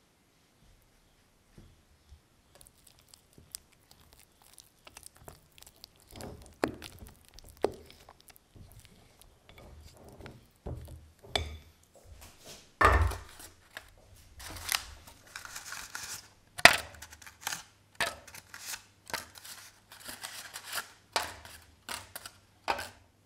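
Thick muffin batter being folded in a glass bowl: irregular scrapes, wet squelches and taps against the glass, growing busier from about six seconds in. A low steady hum joins about halfway through.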